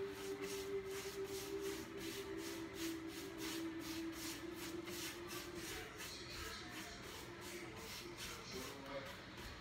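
Old paintbrush scrubbing back and forth on the painted wooden side of a cabinet, rapid even strokes about three a second, blending wet paint. A faint steady hum runs underneath and fades out about six seconds in.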